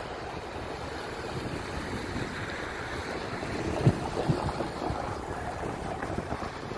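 Wind rushing on the microphone over the sound of cars passing on the road, with two short low thumps about four seconds in.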